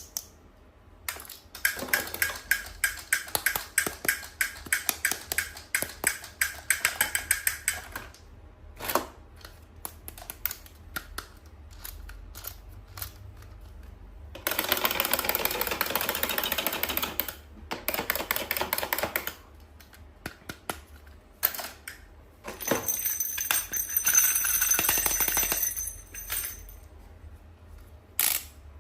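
Toy packaging being handled and opened by hand: three stretches of rustling, crinkling noise, with many sharp taps and clicks between them.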